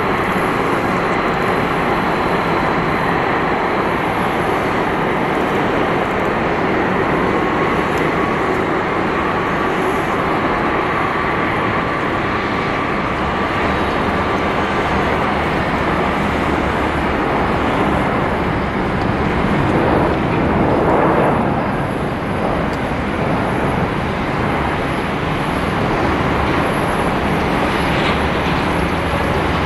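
Jet engines of a Boeing 767 taxiing at idle: a steady jet rush with a faint whine, swelling briefly about twenty seconds in.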